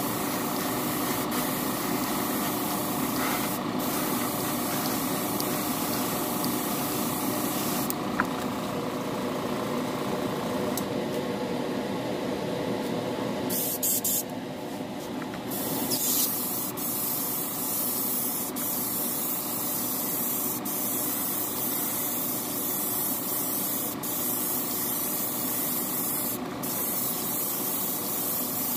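Airbrush hissing steadily as clear coat is sprayed onto a plastic model car body, over a steady motor hum. The hiss thins for a few seconds midway, then comes back at full strength.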